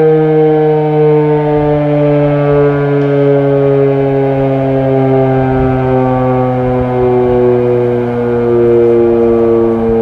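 Modified Federal Signal Model 5B single-phase fire siren winding down after a test, one loud steady tone slowly falling in pitch.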